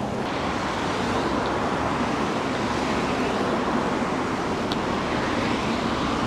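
Steady road traffic noise from cars on a main road, an even rush with no single vehicle standing out.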